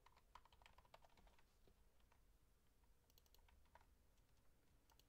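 Faint typing on a computer keyboard: a quick run of keystrokes in the first second and a half, then a few scattered clicks.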